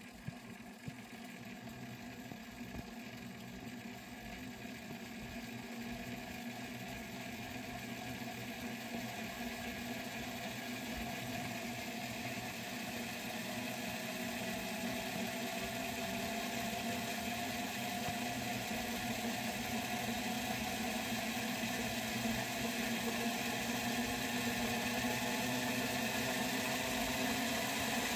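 Small electric motors spinning the two proprotors of a 1/48 scale Hobby Boss V-22 Osprey model: a steady whir that grows steadily louder as the rotors speed up, with a faint tone slowly rising in pitch from about halfway through.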